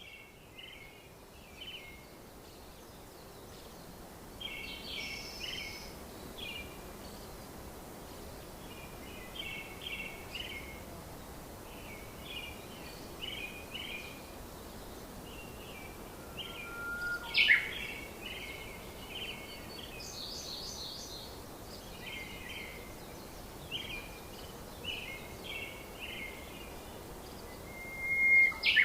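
A small bird chirping in short runs of quick, high notes, repeated every second or two over a steady background hiss, with a louder, sharp call about two-thirds of the way through and another near the end.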